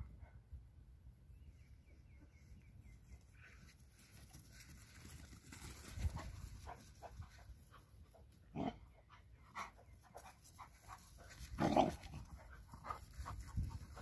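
Two Central Asian Shepherd Dogs (Alabai) playing, with panting and a series of short, sharp sounds in the second half, the loudest about three quarters of the way through.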